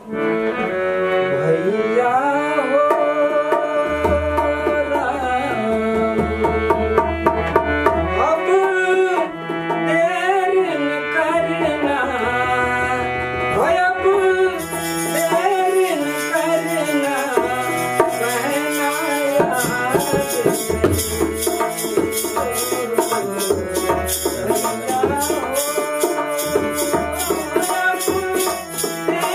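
Devotional folk bhajan on harmonium with dholak drumming, a man singing. A fast, rattling clapper rhythm joins in about halfway through.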